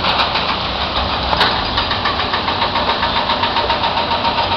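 Heavy rain falling steadily, dense and loud close to the microphone.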